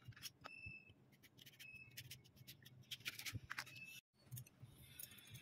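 Faint, irregular scraping strokes of a kitchen knife peeling the skin off a chayote, breaking off for a moment about four seconds in.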